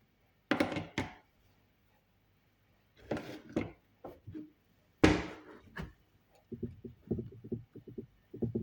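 Kitchen handling sounds: three separate knocks and clatters of utensils or dishes, the third the loudest with a short ring-out, then a quick run of light taps near the end.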